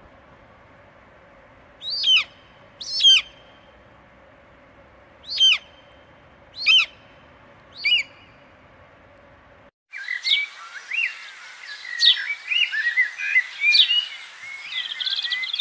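Birds calling: five loud, sharp whistles that slur downward, a second or two apart, over a faint steady background hiss. After an abrupt cut near ten seconds in, several birds chirp and trill busily together.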